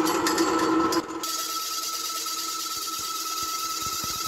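Electric-motor-driven grain pulverizer of a chaff cutter cum pulverizer running steadily, with a constant machine whine. The sound drops abruptly about a second in and carries on more quietly.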